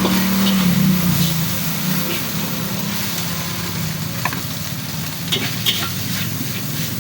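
Food sizzling in a wok while a spatula stirs it, with a few sharp clinks of the spatula against the wok in the second half, over a steady low hum.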